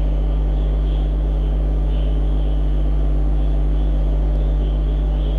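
Steady low hum that does not change, loud and with a strong deep drone underneath, and a faint hiss higher up that swells and fades.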